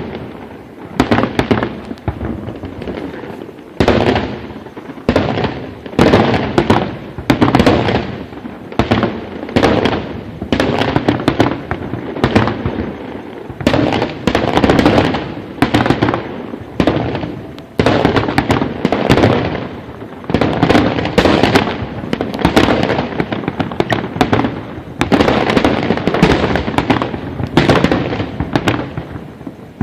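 A fireworks display: aerial shells bursting in a steady barrage of loud booms, one or two a second, with a rolling rumble filling the gaps between them.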